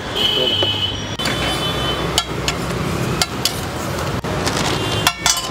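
Flat metal spatula clanking and scraping on a large iron tawa as butter-fried kulchas are lifted and flipped, with sharp clanks about once a second.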